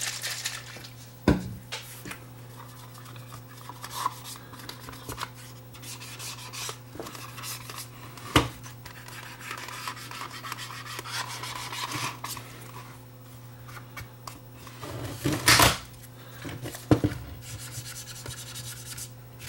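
Fingers rubbing and handling the small metal case of a Sony Walkman WM10 cassette player, scrubbing its surface to clean it, with a few sharp clicks and knocks as it is moved, the loudest near the end. A steady low hum runs underneath.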